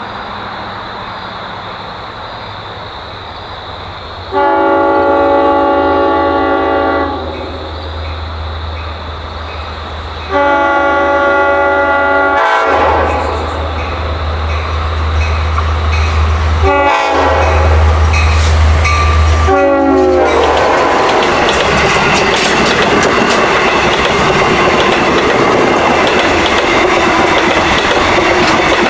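Diesel locomotive's K5LLA five-chime air horn sounding the grade-crossing signal (two long blasts, a short one and a long one) over a low engine rumble. From about two-thirds through, the passing train's cars and wheels give a loud steady rush with clickety-clack.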